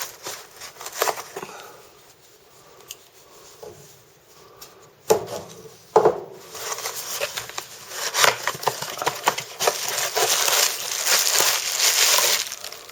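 Cardboard mailing box being cut open with a Kershaw pocket knife: scraping and slicing with a couple of sharp knocks, then a long run of rustling and crinkling packaging as the box is pulled open.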